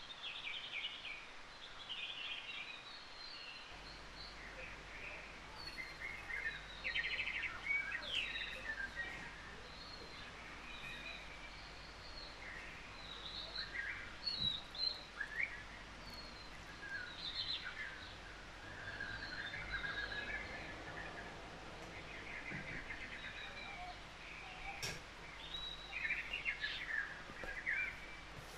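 Recorded birdsong from a background nature-sounds track: many birds chirping in short, high calls throughout.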